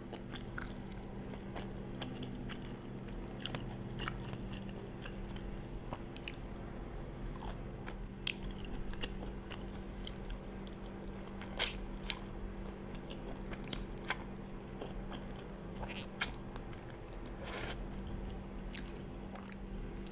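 Close-up chewing and mouth sounds of someone eating soft battered fish and spaghetti marinara, with many short, scattered clicks and smacks over a faint steady hum.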